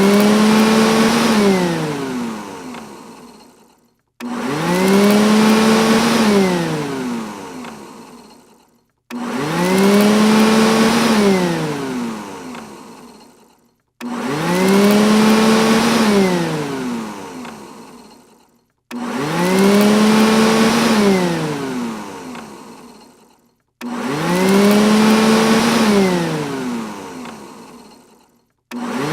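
Robot vacuum cleaner motor spinning up with a rising whine, holding briefly, then winding down and fading out. The same cycle repeats about every five seconds, six times, with a short silence between each.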